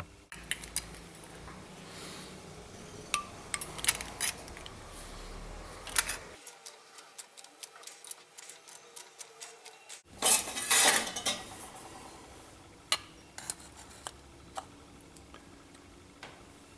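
Irregular sharp metallic clinks and taps of a sheet-steel repair piece being worked to shrink its inner edge, with a loud cluster of strikes about ten seconds in.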